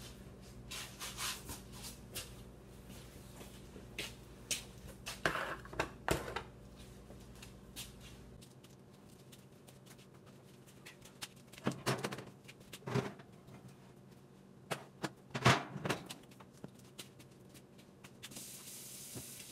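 Scattered clicks, knocks and clatter of kitchen things being handled, such as cupboards, dishes and pans, with a few louder knocks in the second half. A low hum underneath cuts off about a third of the way through.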